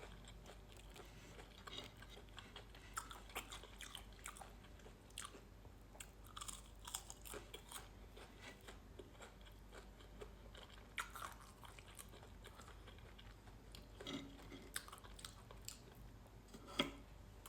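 A person chewing crunchy fried food close to the microphone, with soft, irregular crunches and bites.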